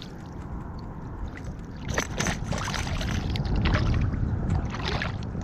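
Shallow water sloshing and splashing around a hooked speckled trout held at the surface for unhooking, with a few sharp splashes about two seconds in and again near the end, over a low rumble.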